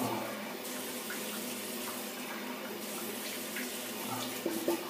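Cold-water tap running steadily into a bathroom sink while a face is rinsed, with a few small splashes near the end.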